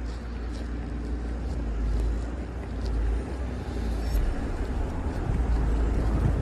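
Wind buffeting the microphone in a heavy snowstorm: a deep, fluttering rumble with no speech.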